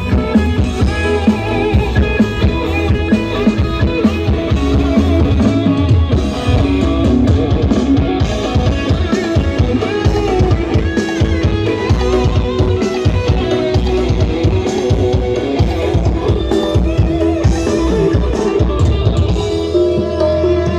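Loud music with drums, heavy bass and plucked-string melody lines, played through a large carnival sound system.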